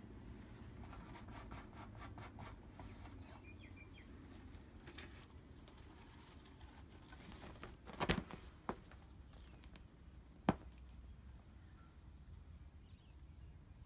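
Fingernails scratching a sisal-rope scratching post in a quick run of about five strokes a second. Later come a couple of sharp knocks, and a single knock a few seconds after them.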